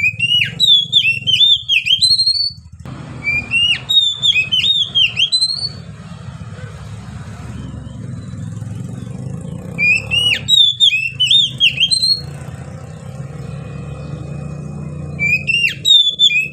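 Oriental magpie-robin singing: a loud phrase of quick, clear whistled notes, repeated four times with pauses between, over a steady low rumble.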